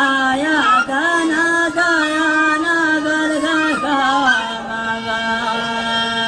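A man chanting Bedouin-style poetry, one voice winding through an ornamented melody and then holding one long steady note from about four seconds in.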